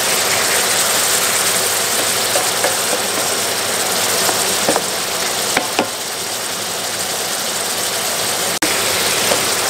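Lamb cubes sizzling in melted tail fat in a frying pan: a loud, steady hiss with a few sharp crackles around the middle.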